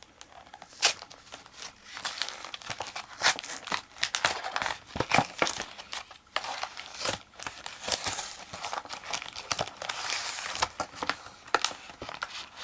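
Pokémon trading card packaging crinkling and tearing as it is opened by hand, with many sharp crackles and snaps.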